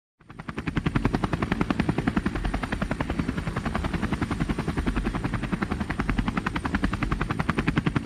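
Propeller aircraft engine sound effect: a rapid, steady pulsing drone that fades in over the first second.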